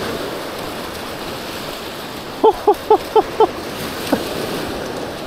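Steady wash of surf on a beach. About two and a half seconds in, five short, evenly spaced pitched calls, about four a second, each rising and falling.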